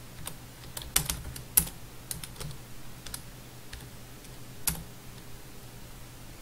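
Typing on a computer keyboard: irregular keystroke clicks, a few of them sharper and louder, over a faint steady low hum.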